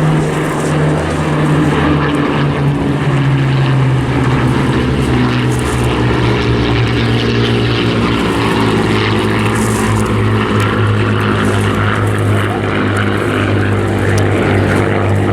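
Piston engines of Second World War propeller warbirds droning during a display pass. The engine pitch sinks over the first few seconds and then holds steady.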